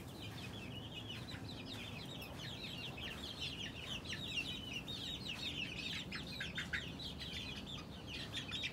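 Young chickens peeping in a crowd: many short, high, falling peeps overlapping. The peeping grows busier and louder about three seconds in, as the birds are grabbed by hand.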